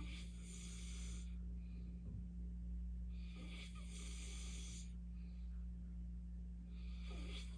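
A sleeping man snoring with heavy, hissing breaths, three of them about three and a half seconds apart, over a steady low hum.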